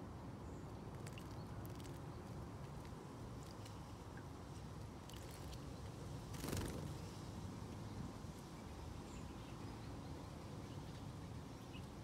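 Blue tit bathing in a shallow bird bath: one brief burst of wing-splashing in the water about six and a half seconds in, with a few faint ticks, over a steady low background rumble.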